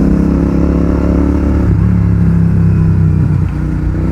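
Royal Enfield Continental GT 650's 648 cc parallel-twin engine running through a Red Rooster Performance aftermarket exhaust while being ridden, loud, with the engine note shifting about a second and a half in.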